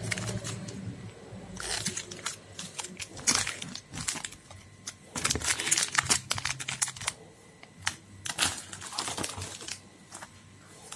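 Foil condom wrappers crinkling and crackling as they are handled, in several bursts of a second or two, with scattered small clicks between.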